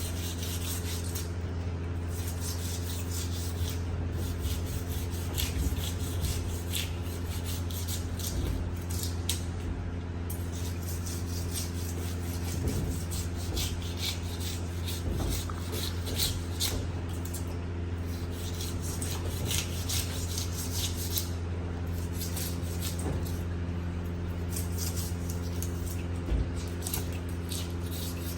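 Knife working on a fish in a long run of short, irregular rasping strokes, over a steady low hum.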